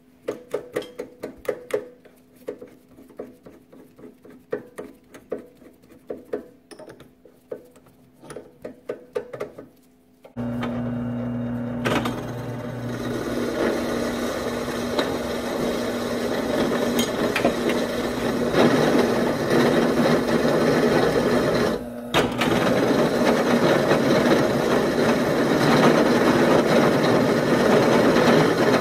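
Scattered clicks and knocks of the steel tube being handled on the drill press table, then about ten seconds in the drill press motor starts and its twist bit cuts into the square steel tubing with a steady grinding, the cut breaking off for a moment about two-thirds through before carrying on.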